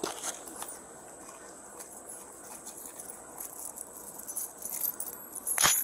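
Light metallic jingling and rattling with scattered small clicks, and one sharp click about five and a half seconds in.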